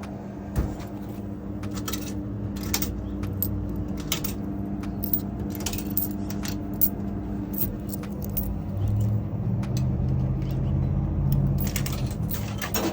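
Coins being paid out of the tubes of a Mars 4510 coin mechanism, with many separate metallic clicks and clinks scattered throughout as the coins drop out, over a steady low hum.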